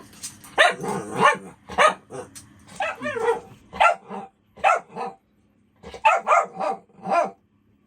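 A dog barking in a quick run of short barks and yips, with one longer, wavering whine-like bark about three seconds in: demanding attention, scolding a person for not petting him.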